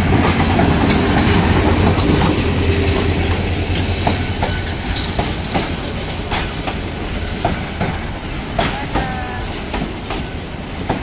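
Diesel-electric locomotive passing close by with a low engine drone, then a line of passenger coaches rolling past, their wheels clacking over rail joints at a regular beat. The sound fades slowly, and a brief high wheel squeal comes near the end.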